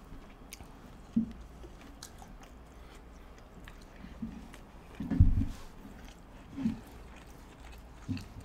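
Close-miked eating sounds of spaghetti squash with chicken and cheese being chewed, with faint clicks and a few short muffled mouth sounds, the loudest about five seconds in.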